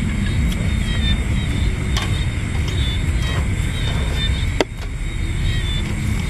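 Steady low rumble of wind buffeting the microphone. A single sharp knock comes a little over halfway through as the camera is handled.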